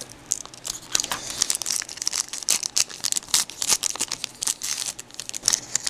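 Plastic trading-card pack wrapper being torn open and crinkled by hand: a dense run of irregular crackles and rustles.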